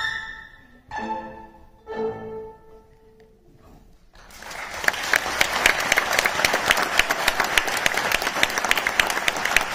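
A children's violin ensemble with piano ends a piece: a final note after an upward slide, then two short closing chords about one and two seconds in. After a brief hush, the audience breaks into applause and keeps clapping.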